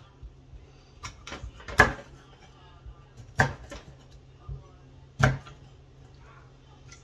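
Large kitchen knife chopping raw catfish into chunks on a thick wooden chopping board: three heavy chops about a second and a half apart, with a few lighter knocks between them.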